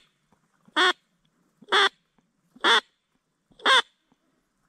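Duck call sounding a steady series of single quacks, evenly spaced about one a second, calling to ducks.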